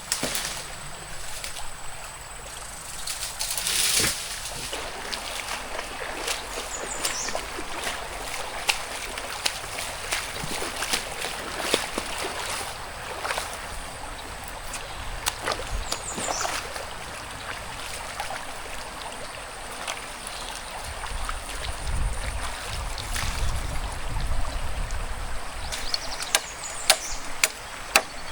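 A forest stream flowing steadily, with scattered knocks and clicks of work close by and a few short high chirps. Near the end a run of sharp, evenly spaced strokes begins.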